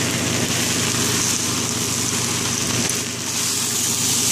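Vegetables and rice sizzling in a hot non-stick wok as they stir-fry: a steady hiss over a steady low hum, dipping briefly about three seconds in.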